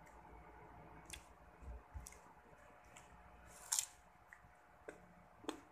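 A bite into a crisp green mango slice: one sharp crunch about two-thirds of the way through, with a few fainter crunching clicks of chewing before and after.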